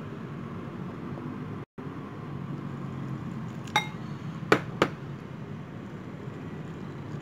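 Three sharp clinks of tableware a little past the middle, the first ringing briefly, as a metal spoon works a flour batter in a ceramic bowl beside a glass of water. A steady low hum runs underneath and drops out to silence for a moment about a second and a half in.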